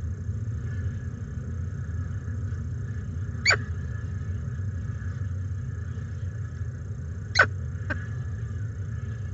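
Steady low rumble from the nest-box microphone, with two short sharp clicks about four seconds apart, the second followed closely by a fainter click.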